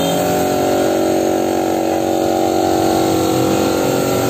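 Compressed-air paint spray gun hissing steadily as it sprays black matte paint onto a pick-up's side spoiler, over the even hum of the air compressor that feeds it.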